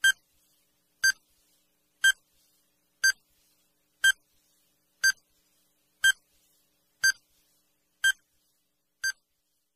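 Quiz countdown timer beeping: short electronic beeps, one each second, ten in a row.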